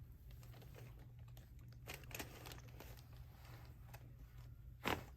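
Faint rustling and small clicks of hands and clothing on a chiropractic table, then near the end one sharp crack from a joint releasing during a chiropractic adjustment.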